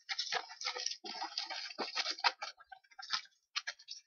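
A hand rummaging through folded paper name slips in a cap: a run of irregular crinkles and clicks that thins out near the end.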